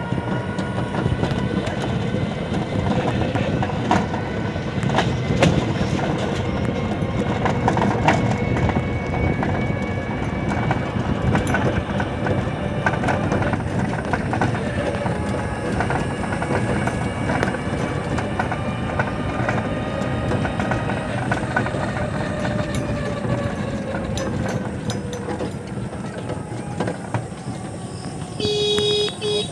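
Ride in a motorised auto-rickshaw: a steady road rumble and rattle with a motor whine that drifts slowly in pitch. A brief horn beep sounds near the end.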